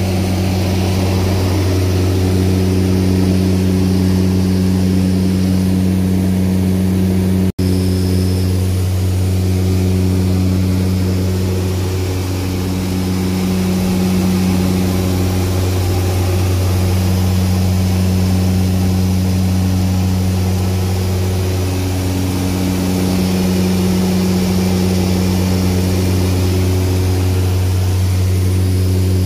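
Propeller aircraft's engine and propeller droning steadily in cruise, heard inside the cockpit: a loud low drone whose tones slowly swell and fade, with a momentary break about seven seconds in.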